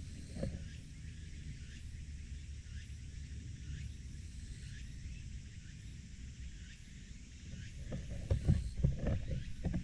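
Outdoor ambience of wind rumbling on a small action-camera microphone, with light ticking and rustling in dry grass. A few soft thuds come in near the end.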